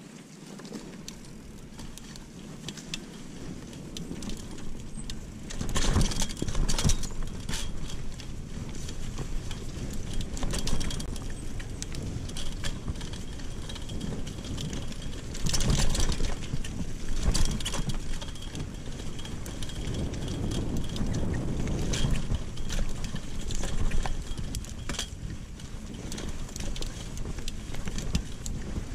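Mountain bike riding along a dirt trail: tyres rolling and the bike's chain and parts rattling, with several louder jolts over bumps. It is quieter for the first few seconds.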